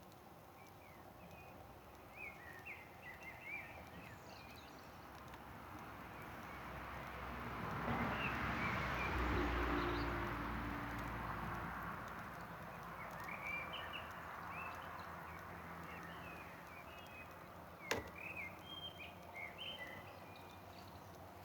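Small birds chirping on and off, while a broad rushing whoosh swells up, peaks a few seconds in and fades away, like something passing by. One sharp crack comes near the end.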